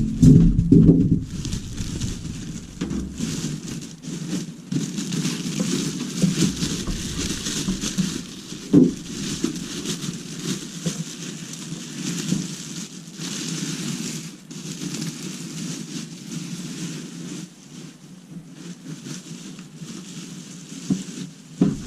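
Cardboard box and packaging being opened and handled: steady rustling and crinkling, with a few knocks, the loudest near the start and about nine seconds in.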